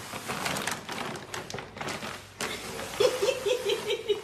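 Plastic shopping bag rustling and crinkling as a small dog tugs and drags it over a wooden floor. About three seconds in, a person breaks into laughter, a quick string of short 'ha-ha' sounds, about five a second.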